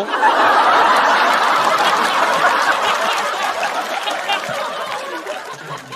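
Studio audience laughing at a punchline, loudest right at the start and slowly dying down.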